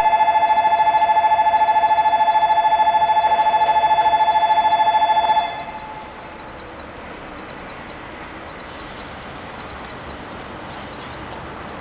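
Platform train-approach warning at a Shinkansen station: a loud electronic two-tone alarm, pulsing rapidly, sounds for about five seconds and cuts off, signalling that a train is about to enter the platform. After it stops, a steady background noise remains.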